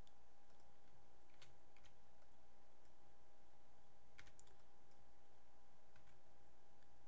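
Scattered light clicks of a computer keyboard and mouse being operated, about ten irregular taps, over a faint steady electrical hum.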